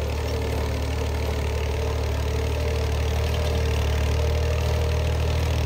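Massey Ferguson 240 tractor's three-cylinder diesel engine running steadily under load as it pulls a 12-row zero-till seed drill, growing slightly louder toward the end.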